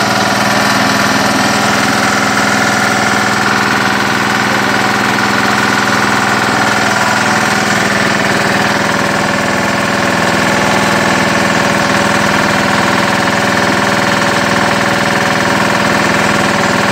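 Belt-driven arecanut de-husker machine running steadily, stripping husks from the nuts, with a constant mechanical hum holding several steady tones.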